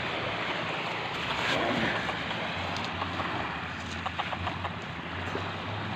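Surf washing onto a pebbly beach: a steady rushing that swells about a second in, with a few faint clicks about four seconds in.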